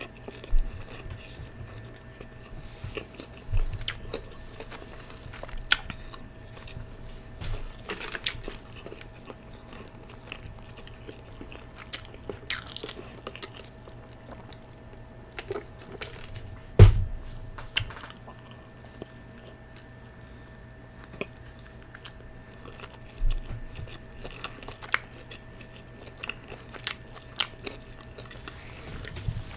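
Close-miked eating: chewing, biting and lip smacking with scattered short mouth clicks, and one louder thump partway through. A faint steady hum lies underneath.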